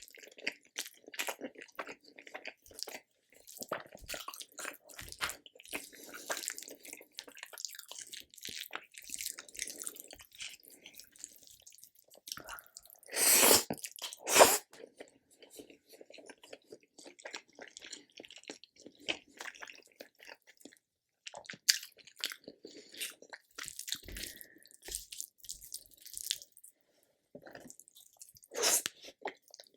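Close-miked eating sounds of a person chewing Indian food: wet chewing and mouth clicks, with a few louder crunchy bites about halfway through and again near the end.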